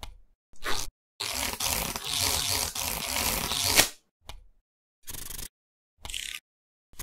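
Dubbed sound effects for a stop-motion playing-card animation: short noisy hits cut by dead silence, and a longer noisy stretch from about one second to nearly four that ends in a sharp click.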